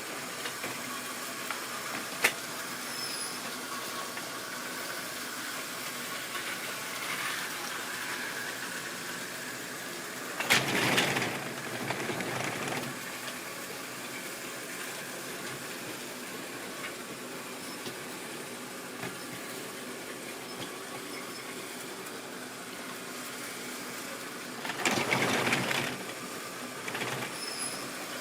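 Model railway train running on its track: a steady motor hum and wheel rattle. It grows louder twice, around the middle and near the end, as the train comes close. There is one sharp click about two seconds in.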